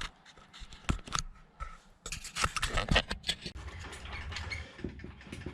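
Hand work on metal parts: a run of irregular clicks, knocks and scrapes, busiest about two to three seconds in.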